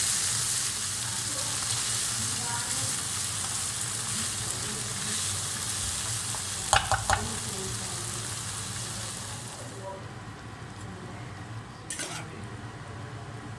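Chicken blood and chives sizzling as they are stir-fried in a hot pan. A quick run of three utensil clacks against the pan comes about seven seconds in, and another knock comes near the end. The sizzle dies away about ten seconds in.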